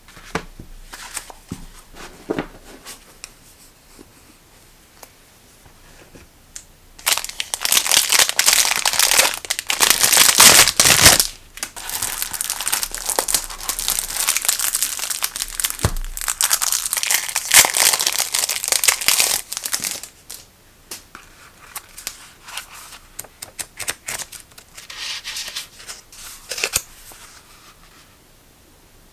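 Clear plastic packaging crinkling in the hands as a bag of sticky-note pads is handled and opened. The crinkling begins after several seconds of light paper rustles and taps, is heaviest through the middle, and thins out near the end.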